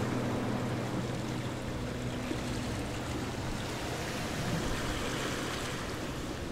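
Steady rushing noise, like surf or wind. Low steady tones fade out in the first few seconds.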